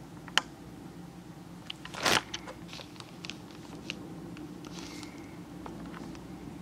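A sharp click, then a short rustling crunch about two seconds in and a few faint ticks, over a steady low hum.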